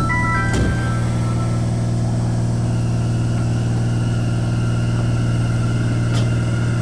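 A Sendai Subway 2000 series linear-motor train pulls away from a station with a steady low hum. A faint high whine sets in about two and a half seconds in as the train starts off. The last notes of a chime melody sound in the first half-second.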